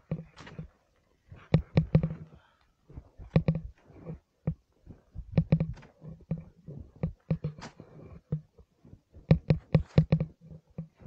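Ice axes and boots striking hard snow as a climber moves along a steep ridge: clusters of sharp knocks and scrapes about every two seconds. A low grunt-like hum sits under each cluster.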